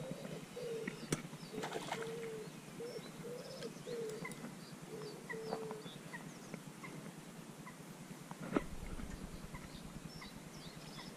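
A pigeon cooing in a run of low, repeated notes that stops about halfway through, with small birds chirping faintly and a few sharp clicks.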